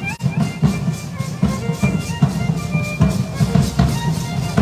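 Drum beating a steady dance rhythm, about three beats a second, for a danza de pluma procession, with high held notes from a melody instrument over it.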